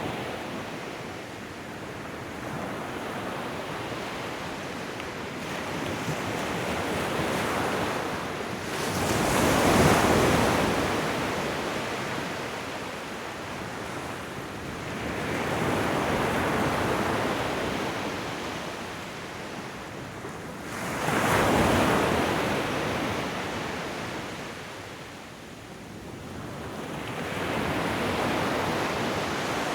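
Ocean waves washing onto a shore, each one swelling and falling away every five or six seconds. The waves at about 10 s and 22 s break louder than the rest.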